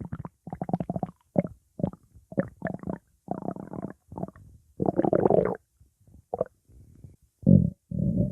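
Stomach growling: a string of about a dozen short rumbles broken by brief silences, the longest about five seconds in, with a longer steady rumble starting near the end.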